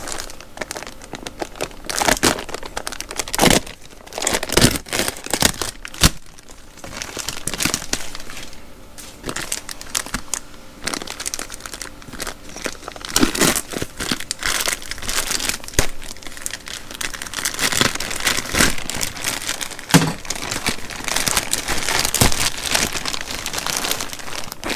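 Plastic wrapping crinkling and tearing in irregular bursts, with a few sharper clicks, as a vacuum-compressed pillow's bag is cut and pulled open by hand.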